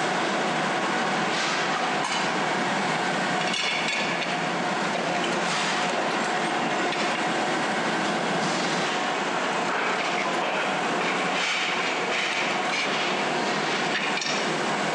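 Steady din of metal-working machinery, with a few sharp metallic knocks as aluminium pressure-cooker lids are worked in a power press.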